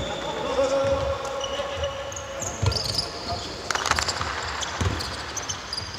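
Basketball bouncing on a hardwood court as a series of dull thuds about a second apart, mixed with short high-pitched squeaks of sneakers on the floor.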